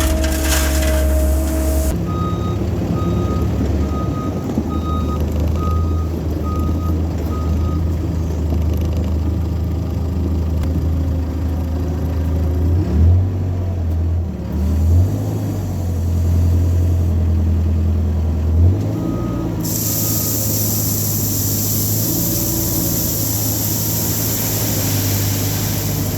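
Cat 308 mini excavator's diesel engine running under changing load. Starting about two seconds in, a back-up alarm beeps in a steady series for about six seconds, then twice more past the middle. A steady hiss runs over the last six seconds.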